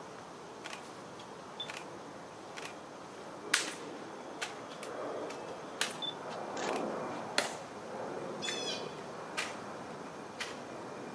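About a dozen sharp clicks and clacks at irregular intervals, the loudest about three and a half seconds in, over a steady low background noise, with one brief high chirp about eight and a half seconds in.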